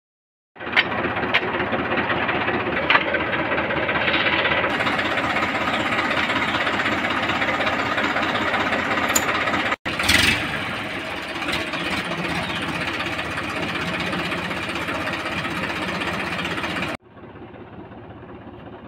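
Tractor diesel engine running steadily, with a few sharp clicks in the first three seconds. It breaks off for an instant about ten seconds in, then carries on, and near the end drops to a quieter, duller running sound.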